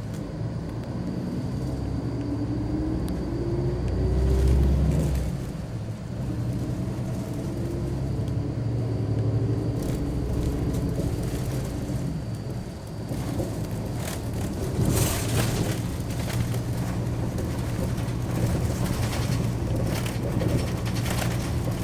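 Bus with a Kai De Machinery body on the road. Its engine note rises as it accelerates over the first few seconds, then it runs steadily with road noise. Frequent short clicks and rattles come in the second half.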